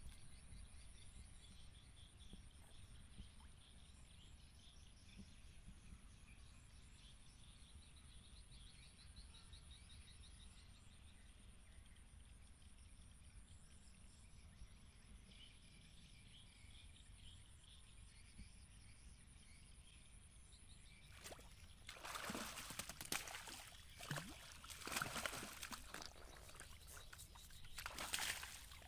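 Near-quiet pond bank with faint high chirping, then, from about two-thirds of the way in, a run of loud, irregular splashes as a hooked fish thrashes at the water surface and is hauled out on a bamboo pole.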